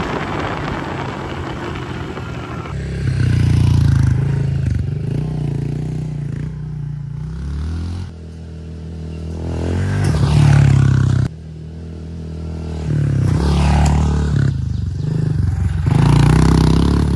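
Honda CRF110F pit bike's small single-cylinder four-stroke engine revving up and down through several passes. Its pitch climbs and falls with the throttle, and the sound breaks off abruptly twice. The first few seconds are a steady wind rush over the engine as the bike is ridden.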